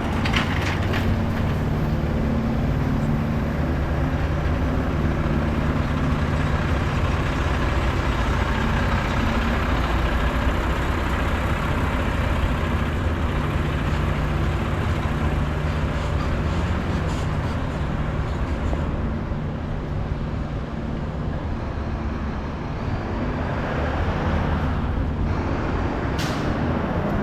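City street traffic with a large vehicle's engine running close by: a steady low drone under a constant wash of road noise.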